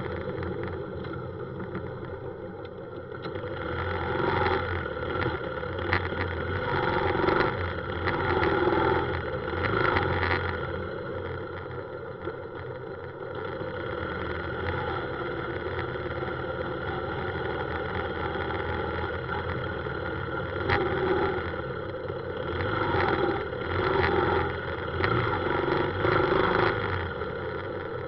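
Motorbike riding through city traffic: its engine running under the noise of the ride and of the scooters and cars around it, getting louder and easing off several times.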